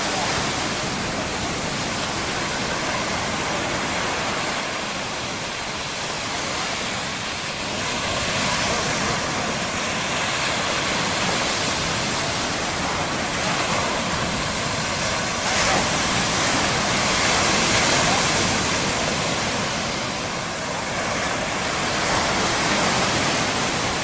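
Mediterranean surf washing onto a sandy beach: a steady rush of water noise that swells with each incoming wave every few seconds, strongest a little past the middle.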